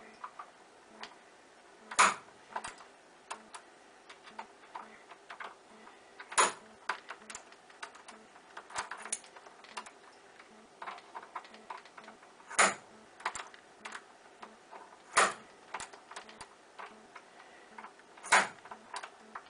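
Bump key in a Schlage deadbolt struck with the blunt end of a spring nail set: five sharp metallic taps a few seconds apart, with small clicks of the key and pins between them. Each tap is a bumping attempt to jump the pins past the shear line, and the lock does not open.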